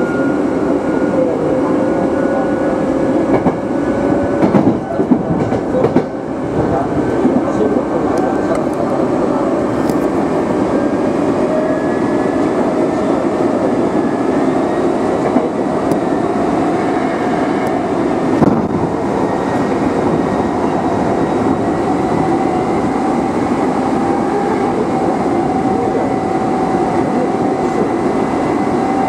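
Hankyu electric train accelerating: the traction motors and gears whine with a pitch that rises slowly and steadily over the rumble of wheels on rail. A few louder knocks come around four to six seconds in and again near the end of the middle stretch.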